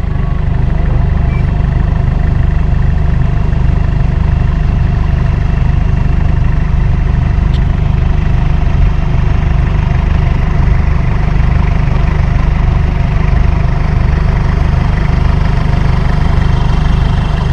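A motor running steadily at a constant speed: a strong low hum with fixed, unchanging higher tones above it.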